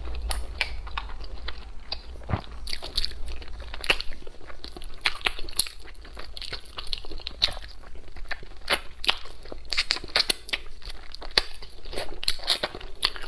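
A person chewing and biting food up close: many small, sharp, wet clicks and smacks at an irregular pace.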